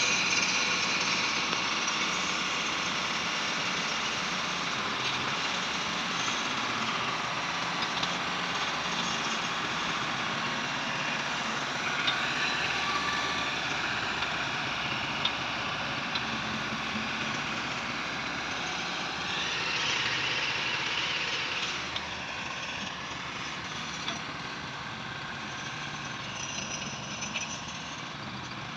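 Massey Ferguson tractor engine running steadily, with a few faint clicks, a little quieter for the last several seconds.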